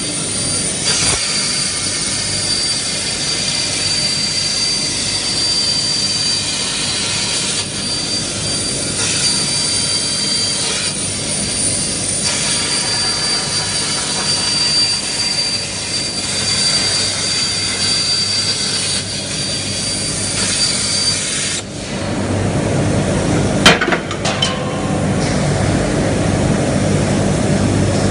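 CNC plasma cutter cutting steel profile: a loud steady hiss with a high whine. About three-quarters of the way through, the hiss and whine stop and a lower rumble takes over, with one sharp click shortly after.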